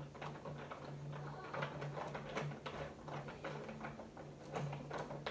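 Irregular clicks and taps of plastic toy construction parts being handled and screwed together, over a steady low hum.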